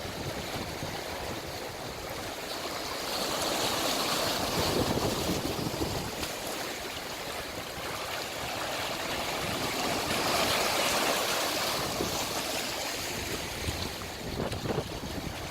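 Winter sea waves breaking and washing up the shore, the surf swelling twice, with a low rumble of wind on the microphone underneath.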